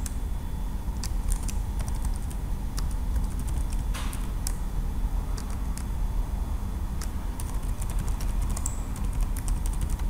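Typing on a computer keyboard: scattered, irregular key clicks over a steady low background hum.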